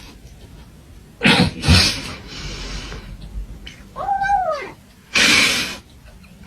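A cat giving one short meow that rises and falls in pitch. Harsh, hissing bursts come before it and one loud burst comes just after it.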